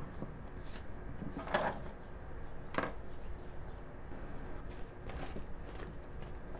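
Small hand tools and a carved wooden model rifle being set down on a wooden workbench: two sharp knocks about a second and a half and three seconds in, with lighter clicks and handling noises around them.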